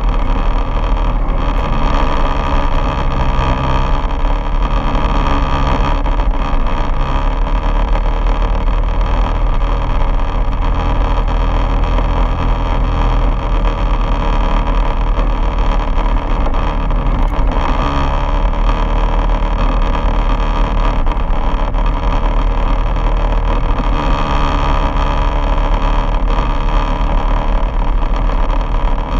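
Quad bike engine running steadily as it rides along, its note shifting a little with the throttle, with some wind on the microphone.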